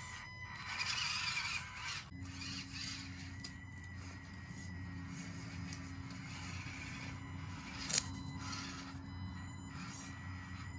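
Background music, with a single sharp click about eight seconds in.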